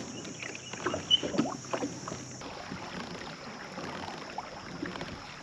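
A pedal kayak under way: small knocks and rattles from the boat, with water washing along the hull. About two seconds in, this turns to a steadier wash of water with only faint clicks.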